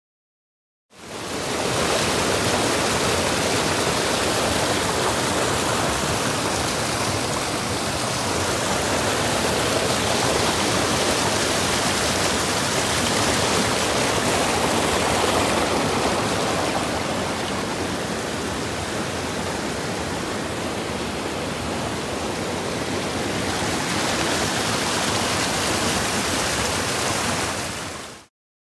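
White-water rapids of a rocky brook rushing over boulders: a steady, loud rush of water that fades in about a second in and fades out just before the end.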